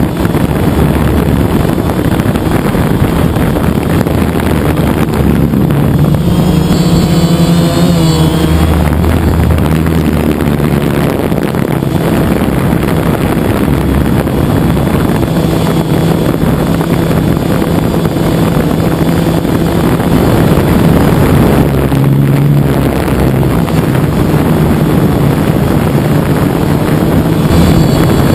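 DJI quadcopter drone's motors and propellers, heard through a camera mounted on the drone: a loud, steady buzz mixed with wind rush. The motor pitch wavers and shifts about seven seconds in and again around twenty-two seconds in, as the drone manoeuvres.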